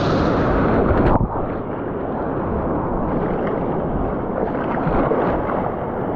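Loud, steady rushing of wind buffeting the microphone together with surf and water noise. The hiss turns suddenly duller about a second in.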